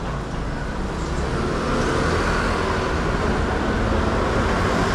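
City street traffic noise: a steady hum of passing vehicles that grows a little louder.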